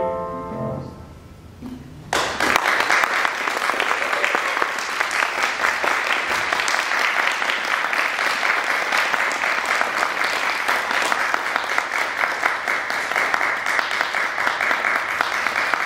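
The last chord of a grand piano fades out, then an audience starts applauding about two seconds in and keeps up steady clapping.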